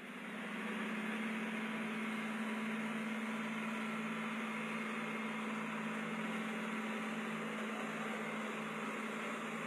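Big farm tractor diesel engines running steadily under load while towing a stuck dump truck through mud: an even engine drone with a constant low hum. It fades in over about the first second.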